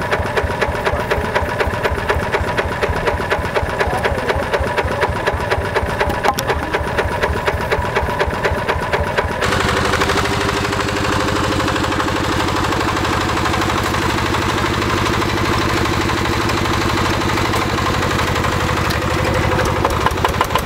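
Single-cylinder diesel engine of a two-wheel hand tractor running with a rapid, even knocking beat. About halfway through the sound changes abruptly to a smoother, steadier engine note.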